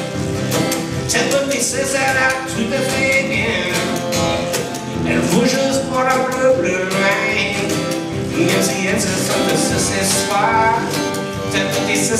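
Acoustic blues trio playing an instrumental passage: two acoustic guitars over washboard and bass-drum percussion, with a pitch-bending melody line above.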